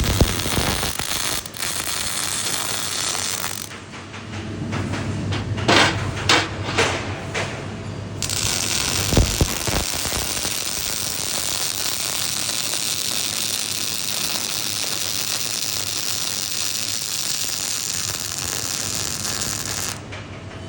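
MIG/MAG (gas metal arc) welding arc crackling: short runs with pops and breaks at first, then one steady, continuous crackle from about eight seconds in that stops shortly before the end.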